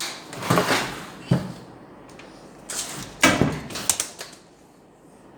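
Two bursts of scraping and sliding with sharp knocks, the second one louder: parts being handled and shifted during the repair.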